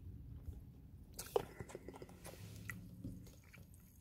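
Faint mouth sounds of someone sipping soda through a straw and swallowing, with small scattered clicks and one sharper click about a third of the way in.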